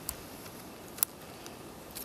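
Two sharp clicks of a plastic strap fitting being handled and fastened at the chest: a faint one at the start and a louder one about a second in, over a faint outdoor hiss.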